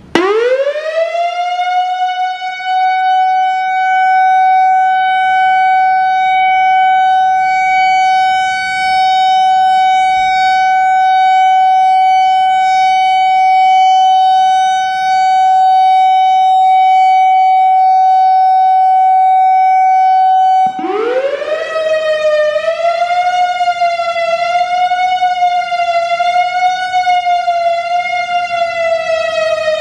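Whelen WPS-3000 electronic outdoor warning siren sounding its steady Alert signal: the tone sweeps up quickly to one held pitch. About twenty seconds later it cuts out, rises again and goes into the Attack signal, a fast wail whose pitch wavers up and down about every second and a half.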